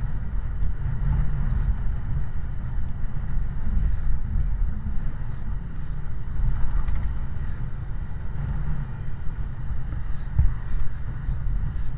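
Steady low rumble of a moving road vehicle, with wind buffeting the microphone.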